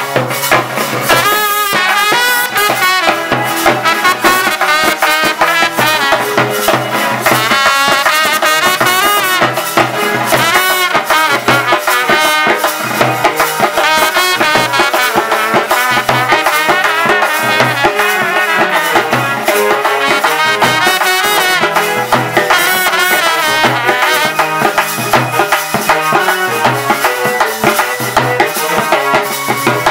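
A live band playing a song: an electronic keyboard and a trumpet carry a wavering melody over a steady, even beat from dhol drums, with rattling percussion strokes throughout.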